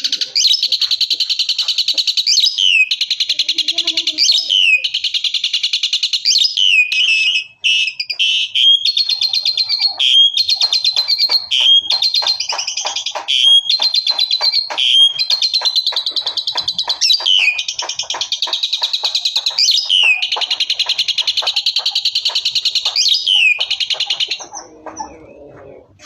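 Asian pied starling (jalak suren) singing a long, loud, fast pulsing chatter with a falling whistled note every couple of seconds, stopping near the end.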